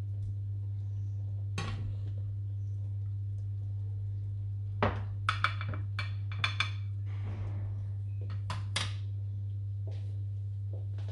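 White slotted spatula knocking, clinking and scraping against a frying pan and a glass dish as stew is served out: a single knock, then a quick cluster of ringing clinks about halfway through, and two more knocks near the end. A steady low hum runs underneath.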